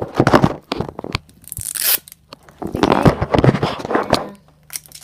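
Plastic toy-packaging wrapper being torn open and crinkled by hand, in two crackly runs with a short hiss between them.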